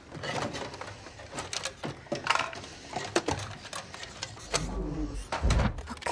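Rapid small metallic clicks and ticks from a robot's mechanical parts as its chest wiring is handled. Low mechanical sounds swell near the end.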